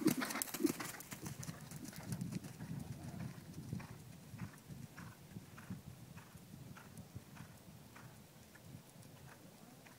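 A horse cantering on sand arena footing, its hoofbeats loud and close at first as it passes, then growing fainter as it moves away, leaving a steady rhythm of soft strikes.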